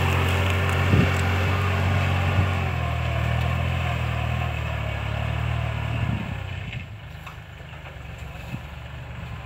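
Kubota L4018 tractor's diesel engine running under load as it pulls a disc plough through soil, with two sharp knocks in the first few seconds. The engine grows fainter from about six seconds in as the tractor moves away.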